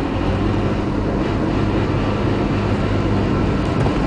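Car engine running at a steady, even note with tyre and road rumble, heard from inside the cabin while driving.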